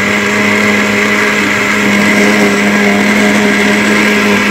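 Countertop electric blender running at a steady speed with a constant motor hum, blending a full jar of juice.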